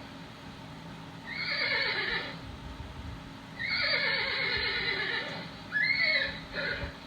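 A horse whinnying: a short neigh about a second in, a longer neigh with falling pitch, then two brief calls near the end.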